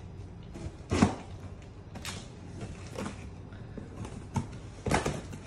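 A small hand saw blade cutting through the packing tape and cardboard on the top of a carton, in about five separate scraping strokes, the strongest about a second in.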